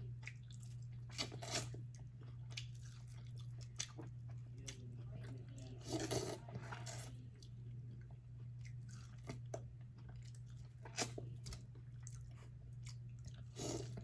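Close-up eating sounds: chewing and biting into seasoned corn on the cob, with scattered short wet clicks and crunches and a louder stretch about six seconds in. A steady low hum runs underneath.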